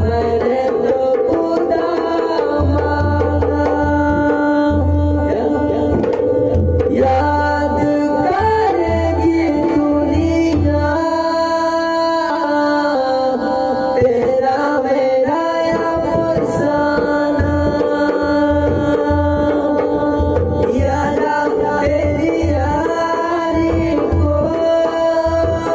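Instrumental passage of a Hindi song: a dholak drum keeps a pulsing rhythm of deep strokes under held melody notes. The deep drum strokes drop out for a few seconds around the middle and then return.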